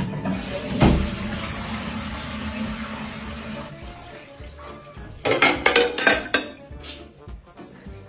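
Wall-hung toilet with a concealed cistern flushing: a steady rush of water that stops after about three and a half seconds. About a second and a half later comes a quick cluster of hard clinks and knocks as the plate is handled at the bowl.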